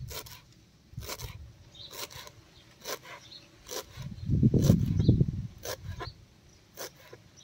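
Kitchen knife chopping fresh coriander on a plastic cutting board: sharp, irregular chops about two a second. A brief low rumble comes about four seconds in.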